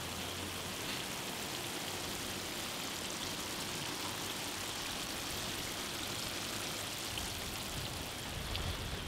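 Pieces of trevally frying in a pan with black pepper and curry leaves, giving a steady sizzle as the fish's own water cooks off.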